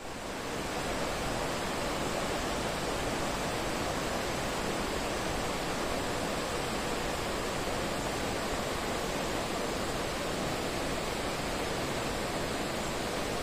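A steady, even rushing noise with no birdsong or other distinct events in it.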